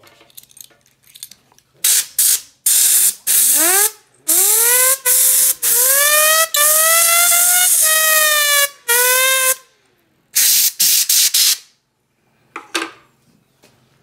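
Compressed air from a blow gun blasting in short puffs and then longer hissing bursts at a small computer cooling fan, starting about two seconds in and stopping a couple of seconds before the end. During the longer blasts the spinning fan whines, rising in pitch as it speeds up and dipping when the air cuts off.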